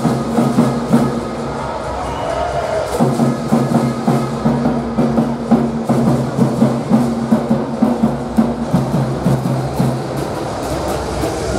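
Music with a percussive beat, a held low note running under it from about three seconds in.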